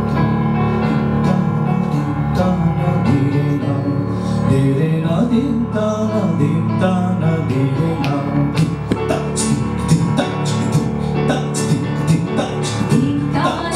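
Live vocal fusion music: a keyboard holds low sustained chords while a woman sings wavering melodic phrases and a man's vocal percussion adds sharp clicks and beats into a microphone, growing busier about eight seconds in.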